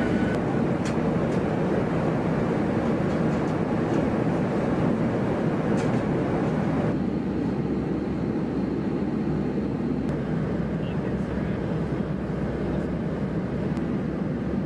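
Steady cabin roar of a Boeing P-8A Poseidon in flight: its two CFM56 turbofan engines and the rush of air, heard inside the fuselage. About halfway through, the upper hiss thins out, leaving the deeper rumble, and a few faint clicks come in the first half.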